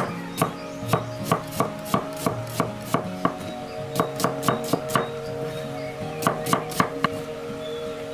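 Cleaver slicing a red onion on a wooden cutting board: a quick, uneven run of sharp knocks as the blade cuts through onto the wood, with two short pauses, stopping about seven seconds in.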